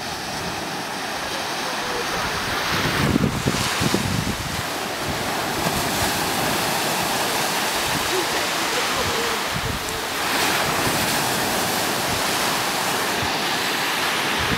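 Steady rushing of wind and surf, with gusts buffeting the microphone and swelling a little twice.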